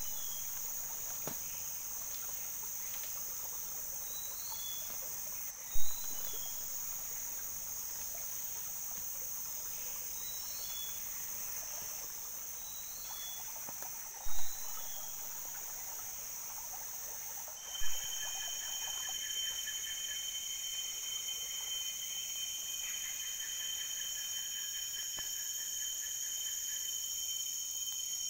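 Tropical forest insects calling together in steady, high-pitched drones, with a few short chirps in the first half. Three brief thumps stand out as the loudest sounds, the last of them where the insect chorus changes pitch.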